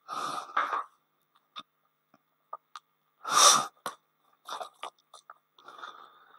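Paper rustling as a book or sheets are handled, with scattered small clicks and one louder noisy rustle about three and a half seconds in.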